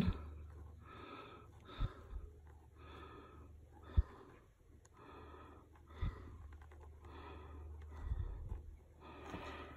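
A person breathing close to the microphone, about one breath a second, over a steady low hum. A few light clicks break in, the sharpest about four seconds in.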